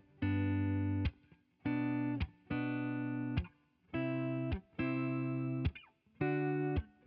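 Background music: guitar chords played in short held blocks, each cut off sharply with a brief gap before the next, about six in all.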